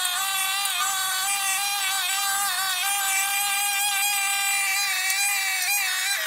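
Backpack brush cutter's small engine running at high speed while cutting grass: a steady high-pitched whine with slight, brief dips in pitch.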